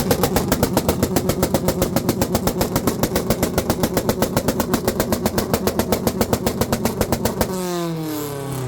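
Honda CRX engine held on a two-step launch limiter. The limiter cuts in and out in a fast, even stutter of pops, about ten a second, for some seven seconds, then the revs fall away near the end.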